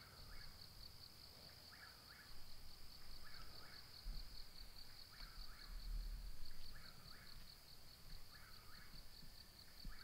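Night insects outdoors: a steady, high, rapidly pulsing cricket trill, with a lower chirping call repeating about every second and a half. There is a faint low rumble in the middle.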